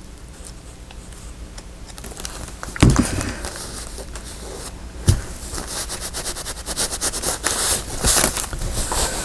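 Paper handled on a craft table: a sharp knock about three seconds in and another about two seconds later, then rustling and crinkling that grows louder and busier through the second half.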